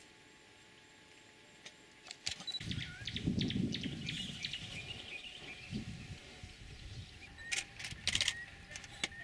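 Birds chirping and calling, joined about two and a half seconds in by a low rumble that comes and goes, and a short run of sharp clicks near the end.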